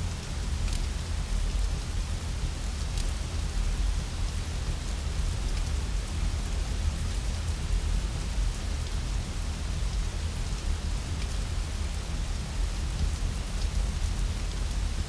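Steady heavy rain with a deep low rumble underneath, and a few faint sharp crackles from a fire now and then.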